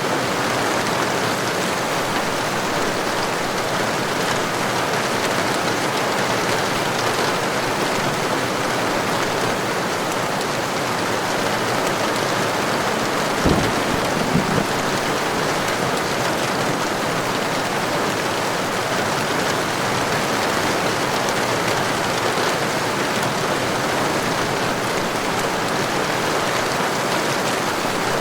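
Heavy rain falling steadily, an even hiss of many drops. About halfway through come two brief low thumps.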